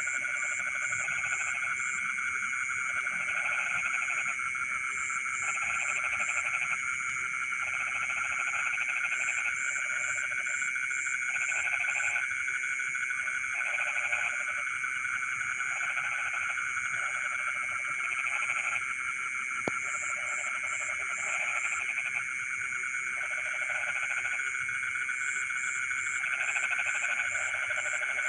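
Night frog chorus: a steady, dense calling chorus overlaid by lower croaking calls in bursts of about a second, repeating every second or two. Quick groups of four or five high chirps recur every few seconds, and there is a single sharp click about two-thirds of the way through.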